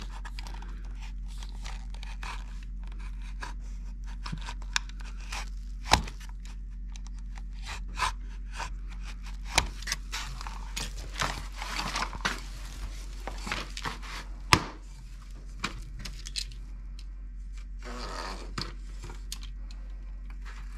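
Utility knife scoring a vinyl floor plank (LVT) in repeated short scraping strokes, with a few sharp clicks and knocks as the plank is cut and handled. The loudest knocks come about six seconds in and again near fifteen seconds.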